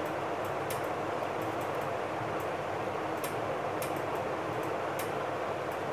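Steady hiss of room noise, like a fan or air conditioner running, with faint scattered ticks.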